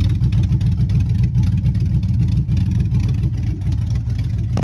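Cammed GM 5.3-litre V8 with a Summit stage 1 cam running steadily at idle, the exhaust pulsing unevenly.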